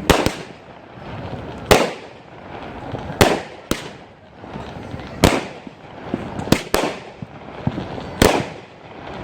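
Backyard consumer fireworks going off: about nine sharp bangs, one every second or two and sometimes two in quick succession, over a steady hissing crackle.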